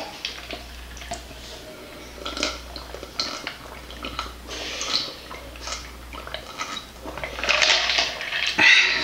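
Close-miked sounds of a person drinking from a plastic cup: irregular swallows and small clicks. Near the end there is a louder breathy rush of air.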